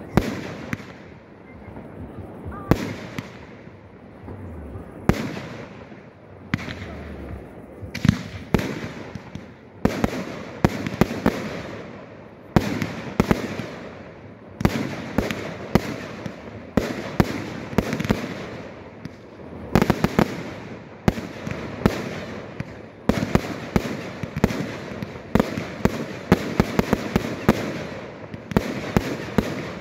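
Aerial firework shells bursting one after another: sharp bangs with crackling between them. The bursts come every second or two at first, then quicken from about halfway into a dense, almost continuous run of reports.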